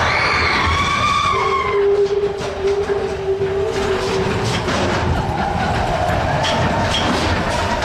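Matterhorn Bobsleds sled rolling fast along its tubular steel coaster track: a steady rumble with rapid clattering from the wheels. Riders' screams trail off in the first couple of seconds, and a steady held tone sounds for a few seconds after that.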